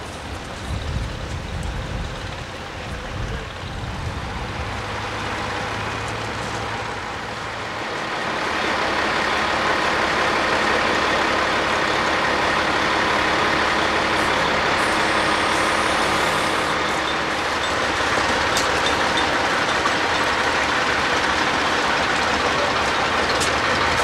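Heavy diesel tractor-trailer engine: a low rumble for the first several seconds, then a louder, steady running sound close by from about a third of the way in.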